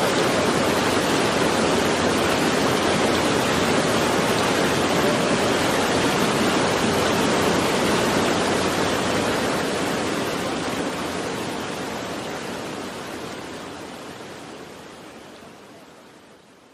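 A steady, even rushing noise with no tone or rhythm in it, which fades away slowly over the second half.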